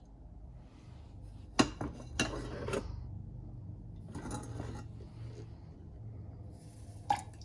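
Dishware being handled: a few sharp clinks of a cup and kitchenware about a second and a half to three seconds in, some softer handling noise, and one more clink near the end.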